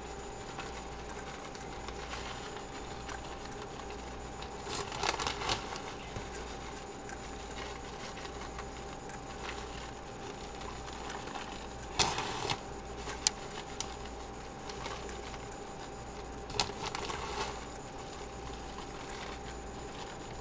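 A plastic bag of shredded cheese crinkling in short bursts as it is shaken out, about five, twelve and seventeen seconds in, over a steady low background hum.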